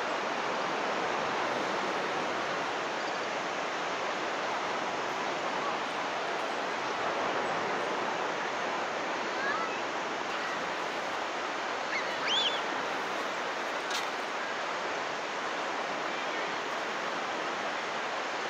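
Steady rushing of ocean surf breaking on a sandy beach. About twelve seconds in, a brief high chirp sounds over it.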